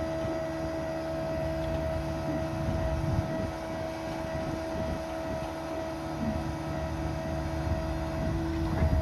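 6.7 Powerstroke diesel running with its PTO-driven hydraulic pump engaged, giving a low steady rumble under a constant whine, as the pump supplies the service crane's hydraulics.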